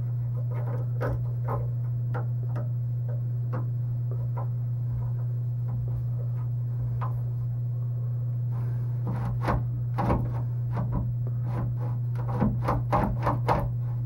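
Freshly greased Dexter door latch and glass knob being worked by hand: scattered light clicks and knocks that turn into a quicker run of clicks over the last five seconds or so, with a steady low hum underneath. The latch moves smoothly.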